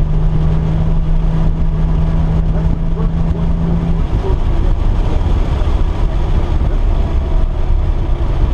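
Car engine running with heavy road and wind rumble, heard from inside the cabin. A steady engine note holds for about four seconds, then drops away.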